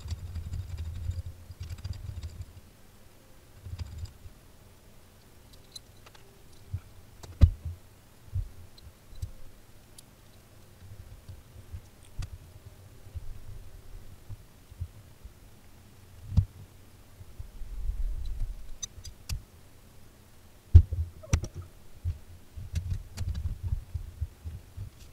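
Scattered knocks, clicks and thumps of a Jeep Cherokee XJ's front seat being worked loose and lifted out, its rotted mounting bracket left unbolted, between stretches of low rumbling handling noise. A few sharp knocks stand out, the loudest near the end.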